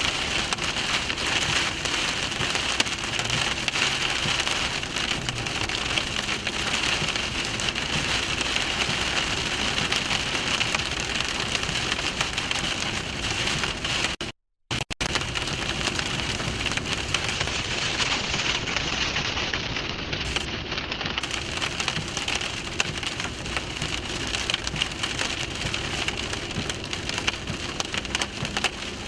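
Heavy rain pelting a vehicle as a dense, steady patter. It cuts out completely for about half a second midway.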